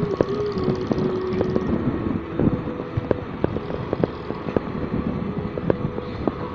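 Motorcycle running on the road, with its steady engine tone dipping slightly about half a second in, over wind and road noise. Frequent sharp knocks run through it.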